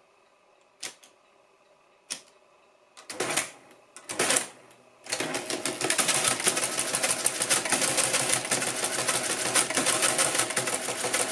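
Mercedes Euklid Model 21 electromechanical calculator being operated: a few single key clicks, two short mechanical whirs about three and four seconds in, then from about five seconds in the electric drive runs the mechanism in a dense, rapid clatter as the carriage shifts.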